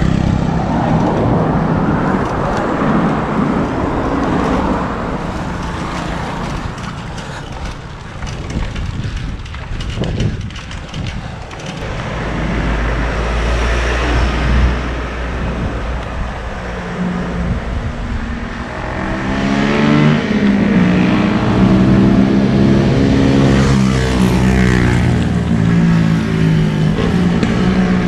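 Wind rushing over the microphone while cycling on a road, with motor traffic going by. In the second half a vehicle engine's note comes in close and bends up and down in pitch as it passes.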